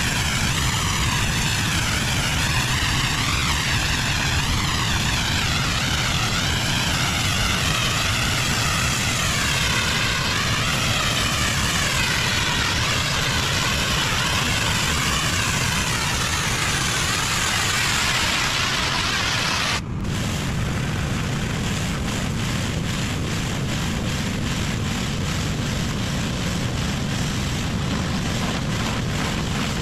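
Pressure washer spraying a high-pressure jet onto a hard surface: a loud, steady hiss whose tone wavers up and down. About two-thirds of the way through it breaks off abruptly and a similar steady spray carries on.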